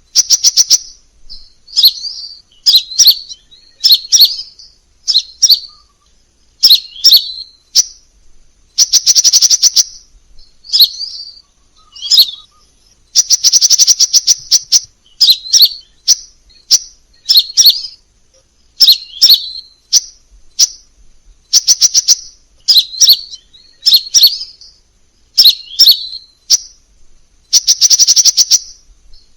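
Crimson sunbird calling: fast rattling trills of sharp, high ticking notes, the longest lasting about a second, alternating with short high chirps, repeated every second or two.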